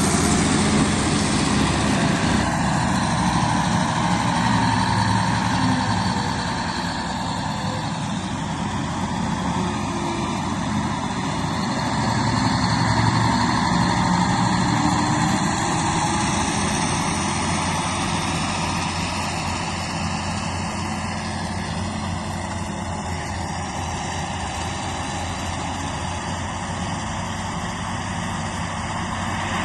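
Bulldozer's diesel engine running steadily, growing louder near the start and again about halfway through.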